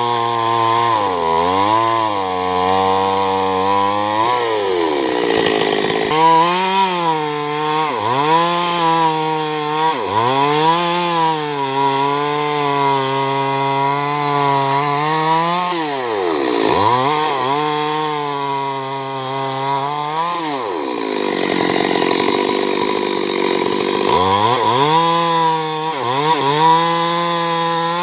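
Chainsaw cutting wood. The engine pitch repeatedly sags as the chain bogs in the cut and climbs back as it frees up, with noisier stretches of chain-on-wood sawing.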